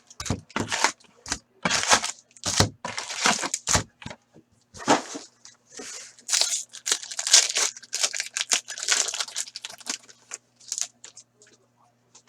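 Sealed trading-card packs being torn open and their wrappers crinkled: a run of loud rustling tears that thins out after about ten seconds to a few light ticks.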